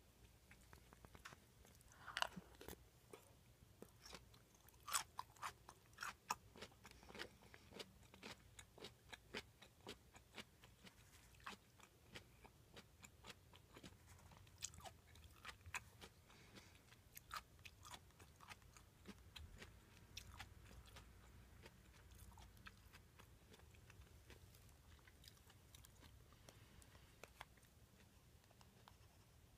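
Close-miked chewing: faint wet mouth clicks and smacks, busiest in the first half and thinning out toward the end, over a low steady hum.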